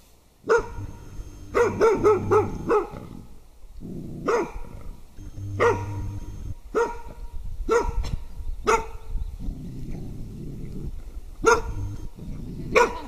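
Welsh springer spaniel barking repeatedly: single sharp barks with a quick run of several about two seconds in. These are alarm barks at the surprise figure of an MH temperament test.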